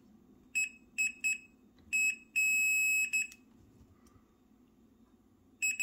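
Digital multimeter's continuity beeper sounding as its probes touch the rear truck pickups and the DCC board: several short beeps, a longer beep about two and a half seconds in, then another long beep starting near the end. Each beep marks a closed circuit, so the truck side is wired through to the board.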